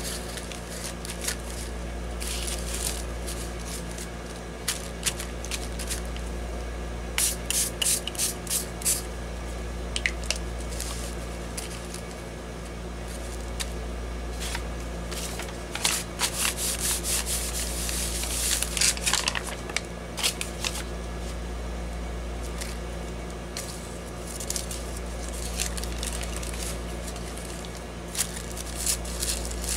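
Finger-pump spray bottle of homemade liquid-watercolour spray misting colour through a stencil onto deli paper: short hissing squirts fired several in quick succession, in groups a few seconds apart.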